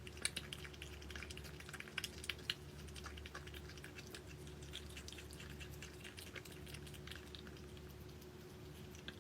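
Many small, irregular crisp clicks and crunches, a few louder ones in the first two and a half seconds, over a faint steady hum.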